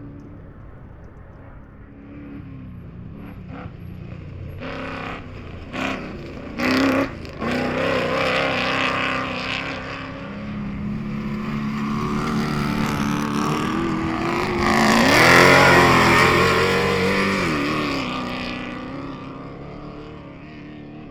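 Off-road race vehicle engine revving as it approaches, loudest about three-quarters of the way through as it passes, then fading away. There are a few brief loud bursts of noise about a third of the way in.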